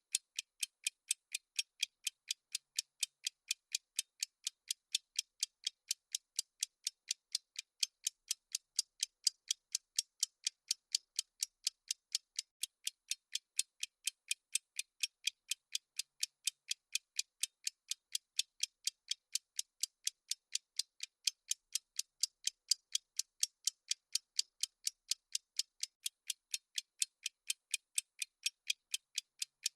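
Clock-ticking sound effect of a countdown timer: thin, crisp ticks at an even pace, about three a second, with nothing else under them.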